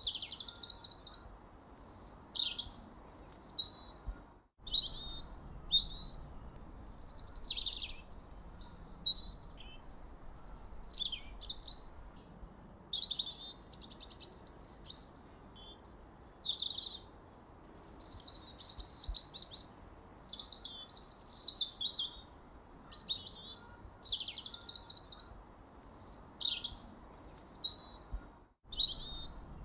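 Songbirds chirping and singing, one short warbling phrase after another with hardly a pause, over a faint steady hiss. The sound cuts out completely for a split second twice, about four seconds in and near the end.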